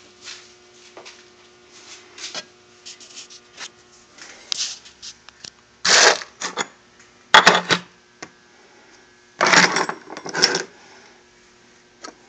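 Compressed-air blow gun firing through a soda-bottle hopper of plastic airsoft BBs. It gives short hissing blasts about six and seven and a half seconds in and a longer one of about a second near ten seconds. Between the blasts, BBs click and rattle as they bounce on the bench.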